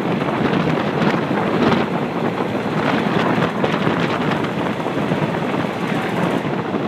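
Wind buffets the microphone held out of a moving passenger train, over the train's steady running noise.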